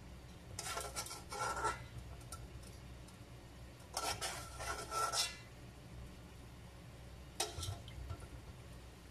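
A metal spoon scraping and clinking against the inside of an aluminium cooking pot as coconut-milk sauce is scooped out, in three bouts about a second, four and a half seconds and seven and a half seconds in.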